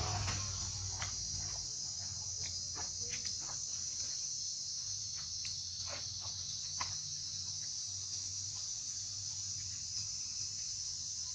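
Steady high-pitched drone of insects, with a scattered handful of short light rustles and clicks in the first several seconds.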